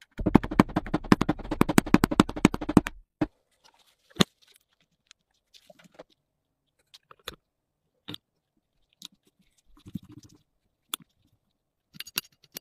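A hammer tapping rapidly on the red-painted metal part of a 1950s flashlight, about ten light strikes a second for some three seconds. Then scattered single clicks and knocks of small parts being handled, and a short metallic clatter near the end.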